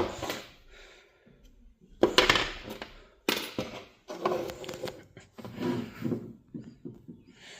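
Broken plastic pieces of a smashed power outlet adapter being handled and set down on a surface, clattering and knocking in a string of separate bursts.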